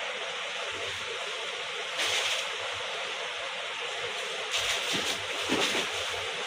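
Saree fabric rustling as it is unfolded and held up, in two brief louder spells about two seconds in and again past the middle, over a steady background hiss.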